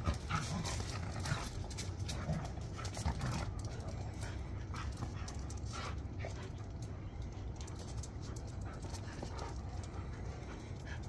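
Dogs panting and moving about as they play, with frequent light clicks and taps.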